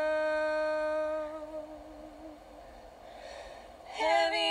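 Women's a cappella quartet holding a sung chord on the word "around", which fades away after about a second and a half. A soft breath fills the pause, and the next chord comes in about four seconds in.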